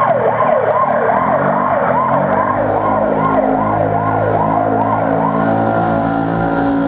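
Siren yelping in fast rising and falling sweeps, a little over two a second, that stops about five and a half seconds in, over steady low tones.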